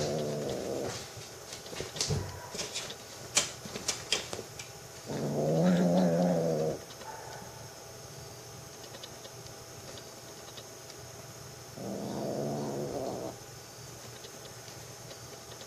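Kitten giving three long, low, drawn-out meows, each about a second and a half and several seconds apart, with a few sharp clicks between the first two.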